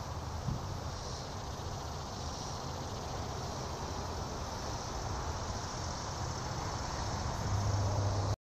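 Insects buzzing steadily in a summer field, swelling and fading slowly, over a low steady rumble. It cuts off suddenly near the end.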